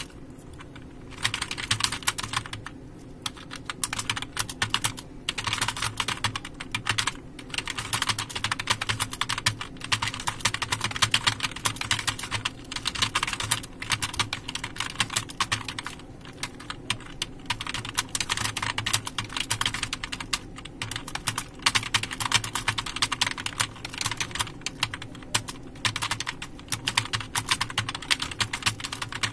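Computer keyboard being typed on fast and steadily while copy-typing a passage: a dense run of keystroke clicks that breaks off for a moment every few seconds.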